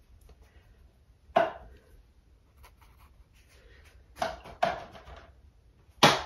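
Four sharp knocks of hard objects: one about a second and a half in, two close together a little past four seconds, and the loudest near the end.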